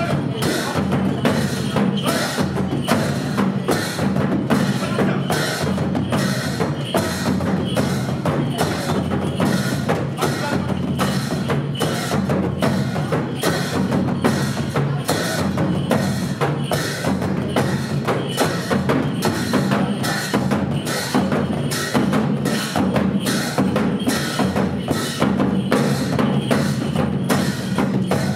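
Nepali percussion music: drums beating a fast, steady rhythm.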